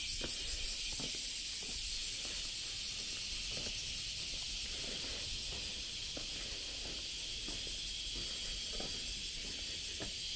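Cicadas droning as a steady high-pitched hiss, with faint footsteps on stone paving underneath.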